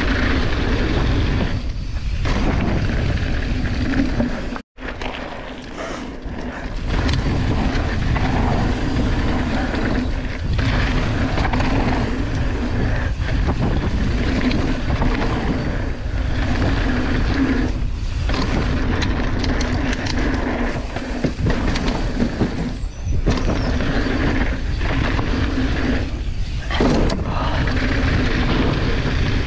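Mountain bike descending a dry dirt trail: steady tyre roar and rattling of the bike over the ground, mixed with wind buffeting the camera microphone. The sound cuts out for an instant about five seconds in.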